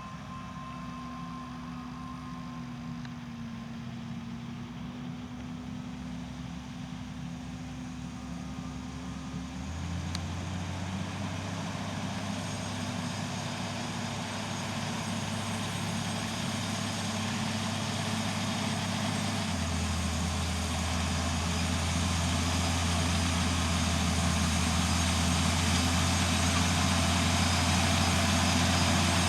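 Tractor's diesel engine running steadily, growing louder as it draws nearer, its note changing about ten seconds in and again near twenty.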